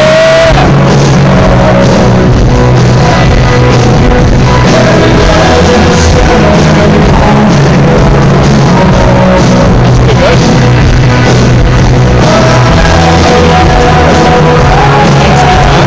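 Live rock band with guitars and drums playing a song, picked up very loud and at full level throughout.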